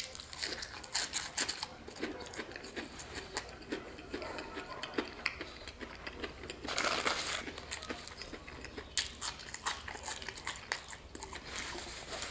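Close-up biting and chewing of crispy battered fried chicken: the crust crunches in many small crackles with wet mouth sounds. A denser burst of noise comes about seven seconds in.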